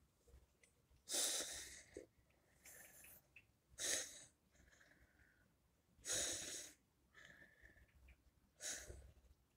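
A person's breathing close to the microphone: four breaths, about two and a half seconds apart, each lasting about half a second.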